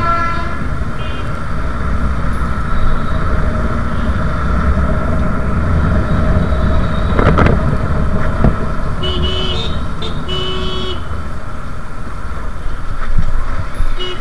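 City street traffic heard from a moving motorcycle: a steady low rumble of engines and road noise, with vehicle horns honking at the start and twice in quick succession past the middle.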